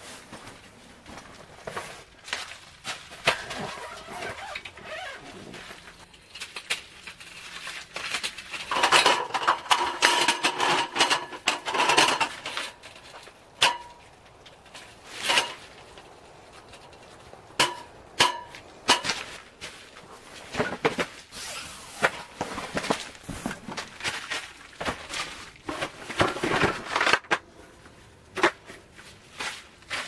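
Camping gear being handled inside a tent: fabric rustling as a sleeping bag is spread over a cot, then a run of irregular clicks and knocks as a wooden slatted folding table is unfolded and its legs locked, with shuffling steps on the tarp floor.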